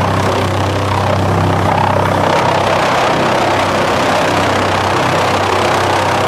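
ASILVA DFR4-550s drum chipper running while its chain infeed conveyor carries wooden boards into the toothed feed roller to be chipped. The noise is loud and steady, with a low hum underneath.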